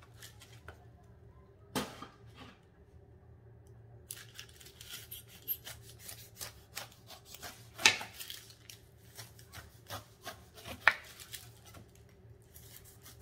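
Kitchen knife slicing the rind off a ripe pineapple, the blade rasping down through the skin in strokes and knocking on a wooden cutting board. Sharp knocks stand out near two, eight and eleven seconds in.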